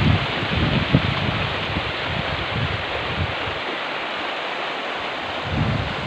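A shallow river rushing steadily over a stony bed, a constant hiss of water. Wind buffets the microphone in low rumbling gusts during the first half, drops away for a couple of seconds, and picks up again near the end.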